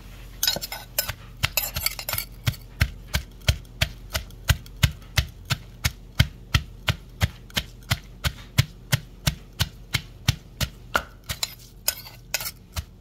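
Wooden pestle pounding long beans in a heavy mortar: a steady run of knocks, about three a second, as the beans are beaten fine for a Lao long-bean salad (tam mak thua). A spoon scrapes the mortar as it turns the beans, briefly near the start and again near the end.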